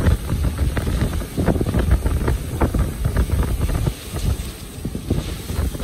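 Hurricane eyewall winds buffeting the microphone in uneven gusts, with wind-driven rain, giving a heavy, irregular rumble.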